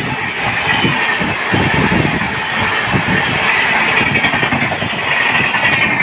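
A long rake of LHB passenger coaches passing at speed close by: a steady rush of wheel-on-rail noise with a stream of rapid low thumps as the wheels clatter over the rail joints.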